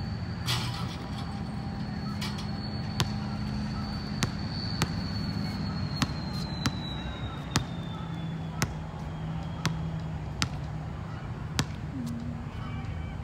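A basketball bounced over and over on an outdoor concrete court, sharp thuds about once a second. Under it sit a steady low hum and a faint high tone that fades out about ten seconds in.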